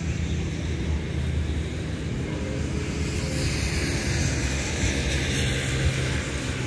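Steady low engine hum, with a broad hiss that swells in the middle and then eases.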